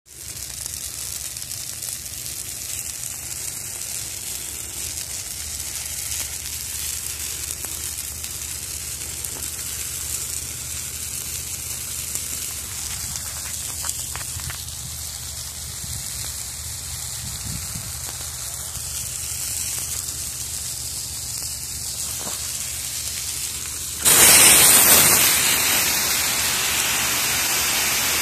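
Burning brush crackling and hissing with a faint steady low hum beneath. About 24 seconds in, a fire hose nozzle opens suddenly and the loud hiss of the water jet spraying onto the flames takes over.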